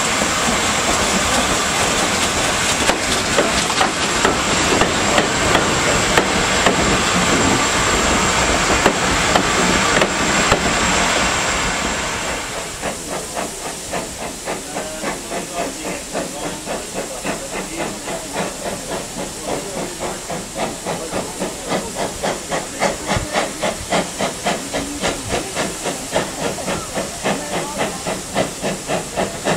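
A BR Standard Class 4 steam locomotive working a train with loud hissing steam. About twelve seconds in this gives way to an approaching Ivatt 2MT tank engine's regular exhaust beats, about two to three a second and slowly growing louder, with steam hissing.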